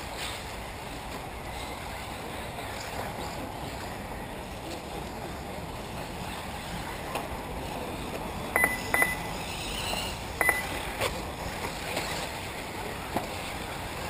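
Electric 1/8-scale RC off-road buggies running on a dirt track, a steady noisy hum of motors and tyres. From about eight and a half seconds in come several short high beeps, two close together, then single ones, along with a few sharp clicks.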